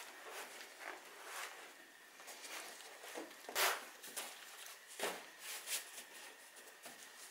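Vinyl moped seat cover being pulled and smoothed over its foam on a plastic-covered bench: rustling and rubbing handling noises, with a sharper rustle about three and a half seconds in and another about five seconds in.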